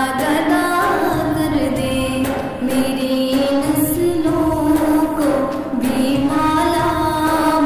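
A woman singing an Urdu naat, an Islamic devotional song, in long drawn-out notes that slowly rise and fall.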